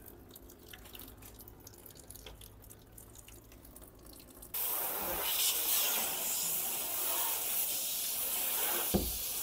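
Faint dripping at first; then, about halfway in, a garden hose starts spraying water abruptly, a steady hiss and splash as the roof and gutter are washed down.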